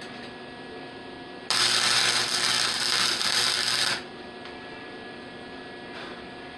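An electric welding arc crackling through a short tack weld, starting abruptly about a second and a half in and cutting off about two and a half seconds later, with a low steady hum under it.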